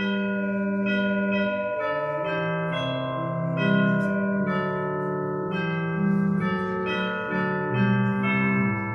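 Final hymn of the service played in slow, sustained chords on a keyboard instrument, the chord changing about once a second.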